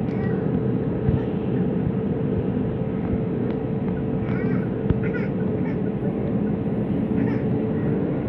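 Steady cabin noise of an Airbus A321 on the ground, its jet engines running, with a constant hum under an even rumble.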